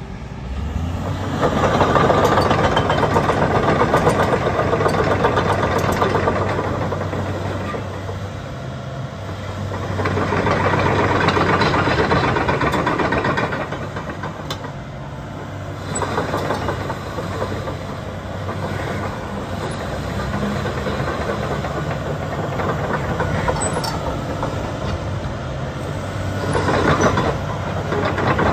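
Doosan DX225LC-3 crawler excavator's diesel engine running steadily. It swells louder several times as the boom, arm and bucket are worked.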